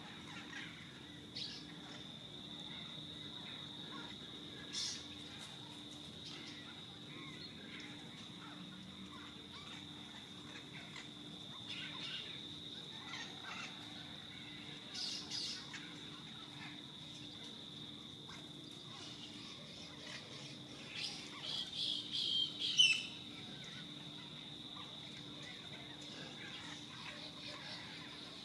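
Parrots calling in scattered short squawks. A quick run of calls comes about three-quarters of the way through, and the last and loudest of them falls in pitch. A steady high-pitched drone runs underneath throughout.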